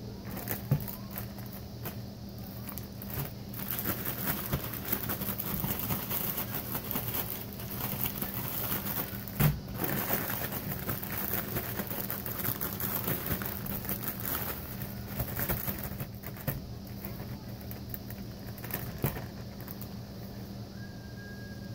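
Zip-top plastic bag crinkling and rustling as bream fillets are shaken and worked by hand in a dry breading mix, with irregular crackles and a few light knocks. A steady low hum runs underneath.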